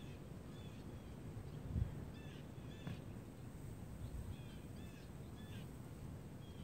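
Birds chirping faintly in the background: short high chirps in small groups scattered throughout, over a low steady rumble with one brief louder thump about two seconds in.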